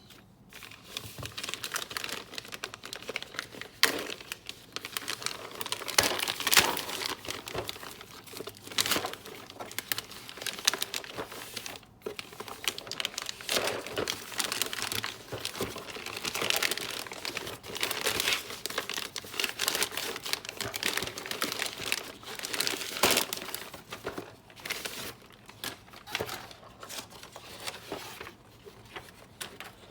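Packaging being unwrapped and handled: continuous crinkling and rustling, with many sharp clicks and knocks throughout.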